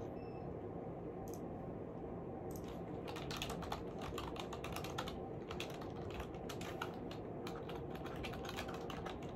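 Typing on a computer keyboard: a quick, irregular run of key clicks beginning a couple of seconds in, over a steady low hum.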